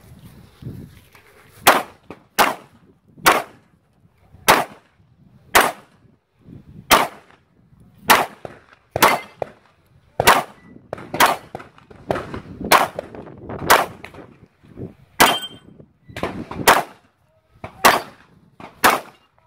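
Pistol fired shot by shot at steel plate targets, about seventeen shots roughly a second apart, a slow, deliberate pace. Some shots are followed by the ring of a hit steel plate, clearest about three-quarters of the way through.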